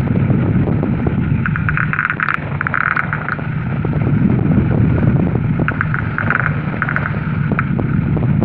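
Weight-shift microlight trike's engine running steadily, with wind rushing over the open cockpit and the microphone; short gusts of higher hiss come and go.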